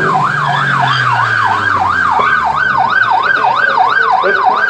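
Police car siren in a fast yelp, its pitch sweeping up and down about three times a second.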